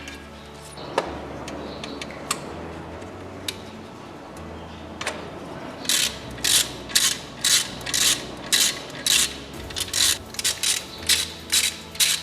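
Ratchet wrench turning bolts: a few scattered clicks at first, then a regular run of ratcheting strokes about two a second from about halfway through.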